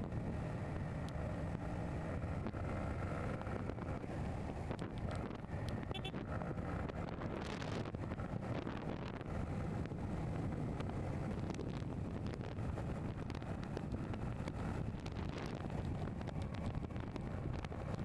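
Steady road and engine noise from a vehicle on the move, with wind buffeting the microphone.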